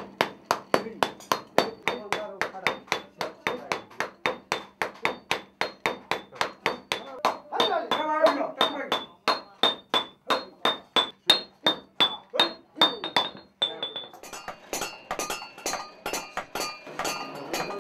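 Hand hammers beating a hot brass bowl in turn, a steady rhythm of about three ringing metal strikes a second. About fourteen seconds in, the strikes become lighter and quicker and ring on several pitches.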